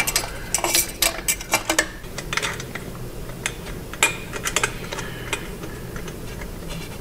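Irregular metallic clinks and clicks of a hand tool and nut against the exhaust header flange as the rear flange nut is worked onto its stud, busiest in the first two seconds and sparser after.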